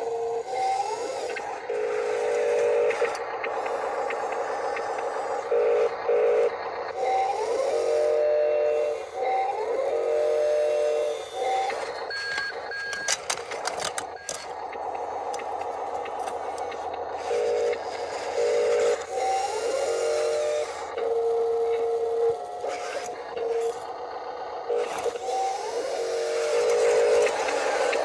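Small electric motors of a radio-controlled toy wheel loader whining in short spurts, starting and stopping, with quick rising whines as they speed up.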